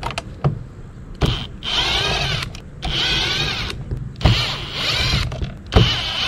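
Battery-powered 24-volt cordless drill spinning screws out of a truck's tow-mirror housing in four short runs of about a second each, its motor whine wavering in pitch. A few sharp clicks come in the first second or so.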